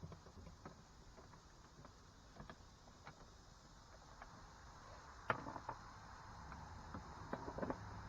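Faint, scattered clicks and taps of a hand tool working the small bolts on a car door panel, with a sharper click about five seconds in and a few quick clicks near the end.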